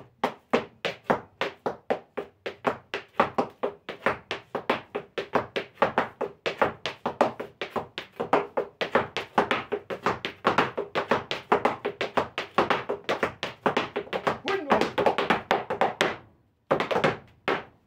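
Zapateo footwork: boot heels striking and soles scraping a wooden floor in a fast, unbroken run of strikes. This is the Bonito step of the malambo, heel and scrape in turn, danced at speed. The run stops about sixteen seconds in, followed by a few last strikes.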